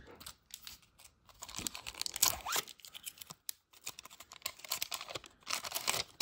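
Silver foil wrapper of a 1992-93 Upper Deck hockey card pack being crinkled and torn open, in a run of irregular crackling rips, loudest about two seconds in and again near the end.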